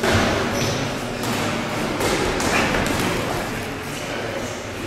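Boxing gloves landing in a sparring exchange: several dull thuds spread over a few seconds, the first right at the start.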